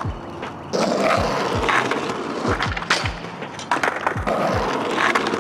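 A skateboard rolling on asphalt, with sharp clacks as the board pops and strikes a metal grind rail and the pavement on a feeble grind attempt. Background music with a steady beat plays under it.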